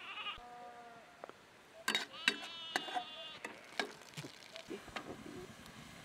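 Goats bleating: a short call at the start and a longer, wavering call about two seconds in, with a few sharp clicks between them.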